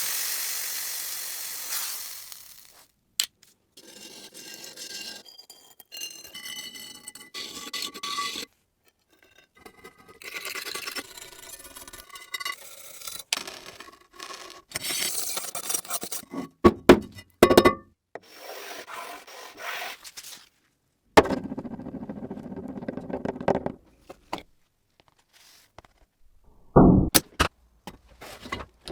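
Scraping and scrubbing on a skillet during restoration, heard as a series of short clips that start and stop abruptly.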